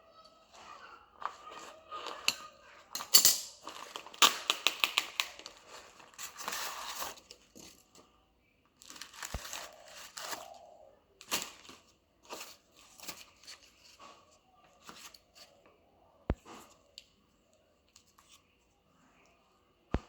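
Packaging being torn open and crinkled by hand, with a dense stretch of rapid tearing between about three and seven seconds in, then scattered clicks and short rustles that thin out towards the end.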